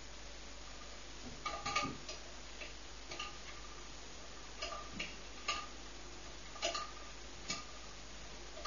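Irregular sharp ticks and small pops from a Bialaddin T10 paraffin pressure lamp burning low with a small flickering flame, about ten in all at uneven intervals, a cluster of them about two seconds in.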